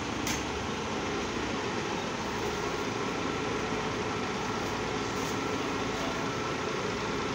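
Fire brigade turntable ladder truck's engine running steadily, as it does while powering the deployed aerial ladder.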